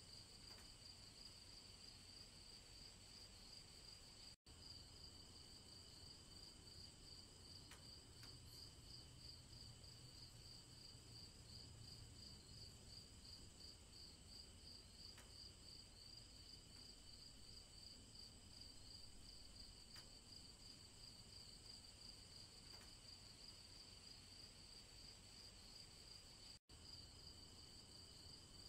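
Faint chorus of crickets: a steady, rapidly pulsing high trill that cuts out completely for an instant twice.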